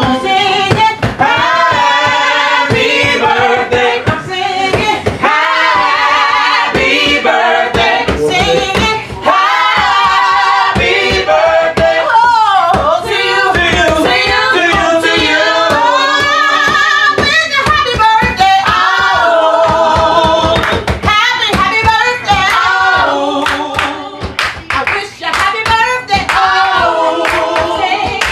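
Music: a song with a lead voice and group singing over a steady beat with hand claps.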